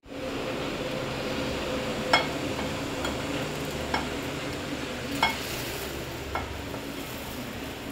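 Popcorn being poured from a small metal pan into a clear plastic bowl: a dry rustle of popped kernels tumbling out, with five short sharp clicks and knocks spread through it, the loudest about two seconds in.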